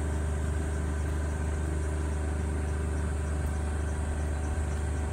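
A steady low engine drone, like an engine idling, unchanged throughout with a strong low hum.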